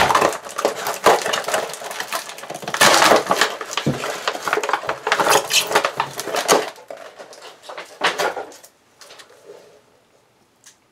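Stiff clear plastic blister packaging crackling and crinkling as a firework shell is worked out of it, dying away about nine seconds in.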